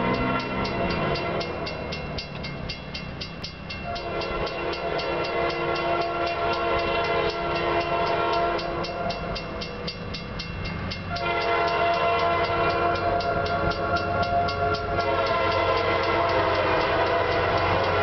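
Norfolk Southern GP38-2 diesel locomotive's multi-note air horn sounding long blasts of a chord, broken twice by short pauses, as the train approaches. A railroad crossing bell dings rapidly and evenly underneath, and a low locomotive rumble grows in about two-thirds of the way through.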